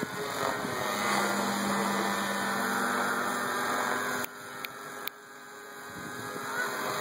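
Thunder Tiger Raptor 50 RC helicopter flying overhead, its two-stroke nitro glow engine and rotor making a steady drone with a hum note that comes in about a second in. A little past the middle the sound drops away sharply twice, with a few faint clicks, then builds back up.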